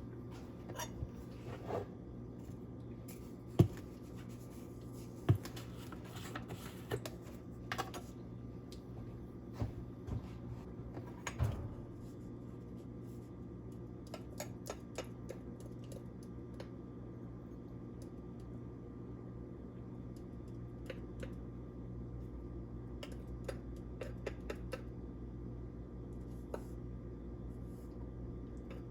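Scattered light clicks and knocks of kitchen containers and utensils being handled, with two sharper knocks in the first six seconds, over a steady low hum.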